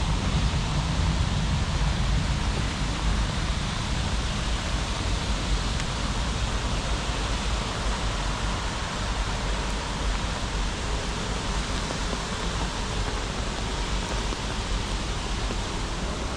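Steady hiss of rain falling, with a low rumble under it that eases off over the first few seconds.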